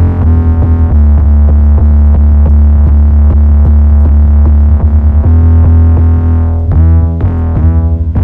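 Distorted, saturated 808 bass synth patch, built from Logic Pro's stock synths and an effects chain, played as sustained low notes with sharp attacks and a change of note about five seconds in, over a programmed beat.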